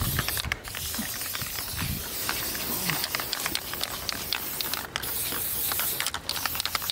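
Aerosol spray paint can hissing in long sprays that stop briefly a few times, with scattered clicks.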